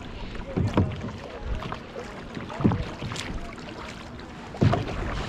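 Kayak paddle strokes: the blade dipping and pulling through the water three times, about two seconds apart, the last stroke the loudest, with small splashes and gurgles of water between strokes.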